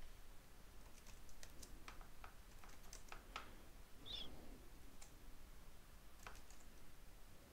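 Faint computer keyboard typing: a scattering of key clicks, mostly in the first three or four seconds, with a couple more after a pause.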